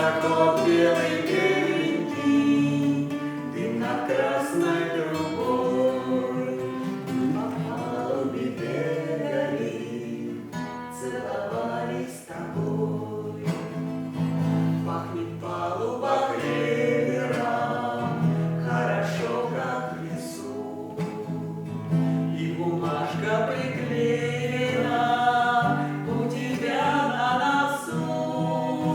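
Voices singing together with acoustic guitar accompaniment: a bard song.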